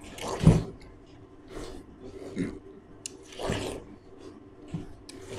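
Several people biting into and chewing watermelon slices: a string of irregular short bites and chews, the loudest about half a second in.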